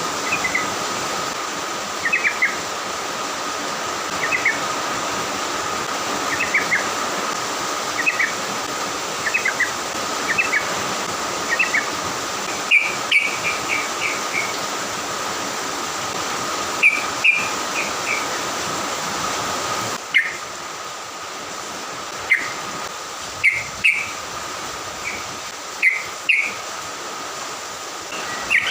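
A songbird giving short chirps in small clusters every second or two, over a steady hiss and a faint steady tone.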